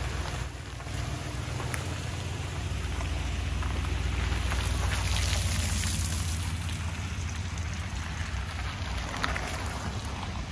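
A vehicle driving along: a steady low rumble with an even hiss over it.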